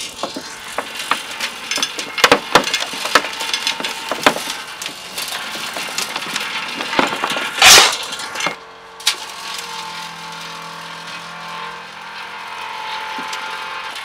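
Xava Garden-Master electric vibrating soil sieve running, with stones and clods rattling and clicking on the shaking screen. A loud rushing scrape comes just past halfway. After it a steady motor hum is left.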